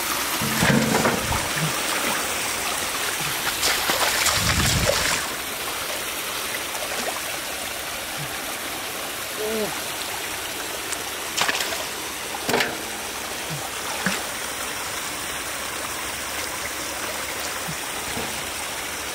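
Steady rush of water flowing through a shallow stream, with splashing as fish are grabbed by hand and lifted out of the water, loudest in the first five seconds and again in a few short splashes a little past the middle.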